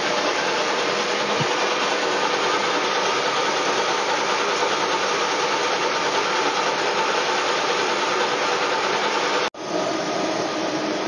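Metal lathe running and cutting a large thread on a steel pipe: a loud, steady machining noise. It drops out for an instant about nine and a half seconds in and resumes at once with a slightly different tone.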